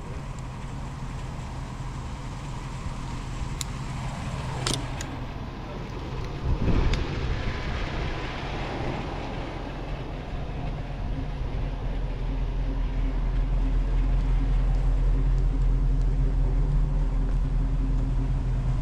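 A motor vehicle's engine and road noise, a steady low hum that grows louder in the second half. About seven seconds in, a brief whoosh rises and falls as a vehicle goes by, and a couple of light clicks come a few seconds before it.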